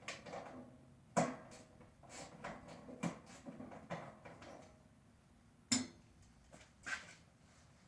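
Scattered metallic clanks and knocks from scrap being worked by hand, with two sharper clanks, one about a second in and one near the end.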